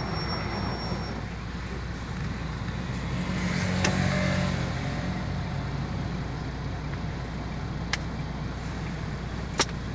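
Vehicle engine running steadily, heard inside the cab while driving on a gravel road, swelling briefly about four seconds in. A few sharp clicks come through, one near the middle and two near the end.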